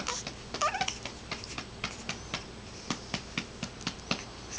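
Hand patting a baby's back to bring up a burp: light, even pats about four a second.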